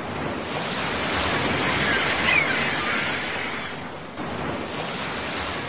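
Ocean surf: waves washing ashore as a steady rushing noise that swells about two seconds in and again after about four seconds, with a few faint, short high whistles over it.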